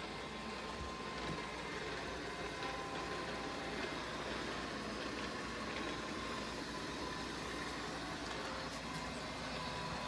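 Kyvol L20 robot vacuum running: a steady hiss from its suction motor, with a faint steady whine.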